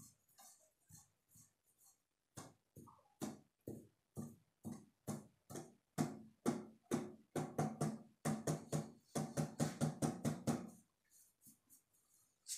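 Rubber balloon squeaking and thudding in short repeated bursts as a hand rubs and presses it, the bursts coming faster and louder in the second half.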